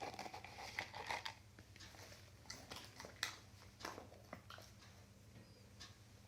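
Dog chewing a treat: a few faint, irregular crunches and clicks.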